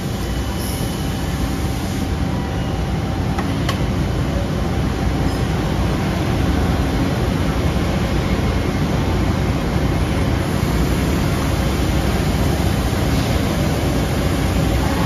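Amada Marvel VT5063SW CNC vertical band saw running with its automatic feed moving bar stock along the roller conveyor: a steady, heavy machine rumble with faint whining tones, and one sharp click about four seconds in.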